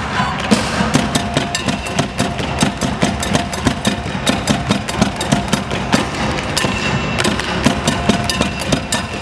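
Tap shoes clattering fast on portable wooden tap boards, with bucket drums and a drum kit beating along: a dense, quick percussion rhythm.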